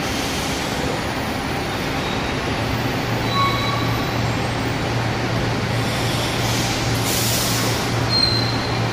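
Diesel city buses running at an interchange: a steady engine drone, joined about three seconds in by a low, even engine hum. A short hiss comes about seven seconds in.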